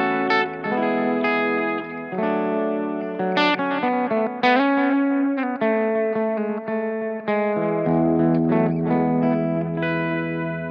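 Electric guitar, a Gibson semi-hollow, playing a slow melodic line of single notes over held low notes, lightly overdriven. The notes ring into one another through a modulated bucket-brigade-style delay from a Strymon Timeline pedal.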